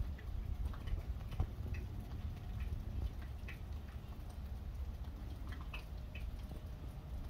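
Outdoor ambience: a steady low rumble with scattered faint, short high ticks.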